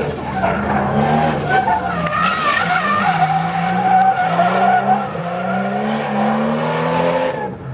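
Nissan Silvia drift car in a sustained slide. The engine is held high, its pitch rising and falling with the throttle, and the tyres squeal as they spin. It all eases off near the end.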